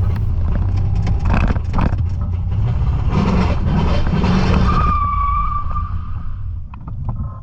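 Holden VN Calais running on the road, then its rear wheels lock up as the transmission seizes: a rush of tyre noise, then a squeal lasting about a second as the car comes to an abrupt halt.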